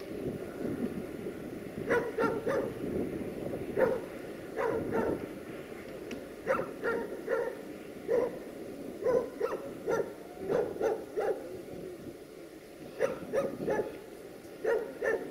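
A dog barking repeatedly, in short groups of two to four barks, over the low rumble of freight wagons rolling past; the rumble thins out in the last few seconds.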